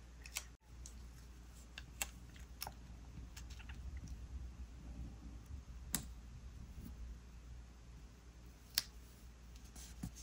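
Quiet handling of paper sticker sheets and a planner page: light rustling with a few sharp, scattered clicks and taps as a sticker is pulled from its sheet and placed.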